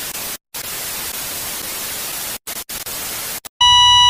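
Static-noise sound effect: a hiss that cuts out abruptly to silence several times, then a loud, steady electronic beep tone starting about three and a half seconds in.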